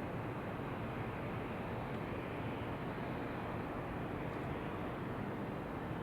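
Steady, even noise of wind blended with added white noise, weighted toward the low end, with no distinct events.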